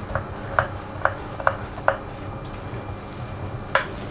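A chef's knife cutting down through layered phyllo baklava in a glass baking dish, the blade clicking against the glass bottom with each cut: five sharp clicks in the first two seconds and one more near the end.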